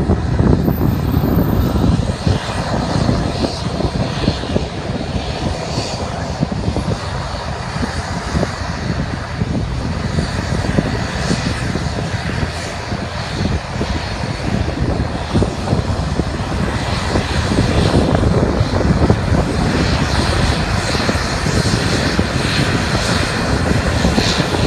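Airbus A340's four jet engines at takeoff power: a loud, steady jet rumble from the airliner as it finishes its takeoff roll, lifts off and climbs away.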